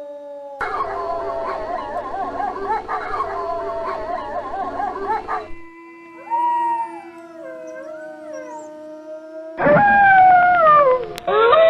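Wolves howling. First a pack chorus of several overlapping, wavering howls, then long single howls held at a steady pitch, and a loud howl that falls in pitch near the end. The sound changes abruptly between takes.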